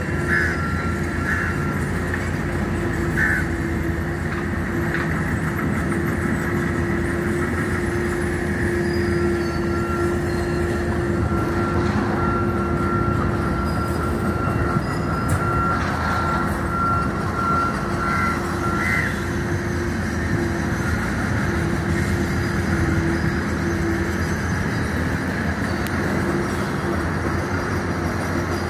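Heavy construction machinery running: a tracked excavator travelling on its tracks and a roller compactor working, a steady diesel drone with a steady high whine over it and a few short chirps.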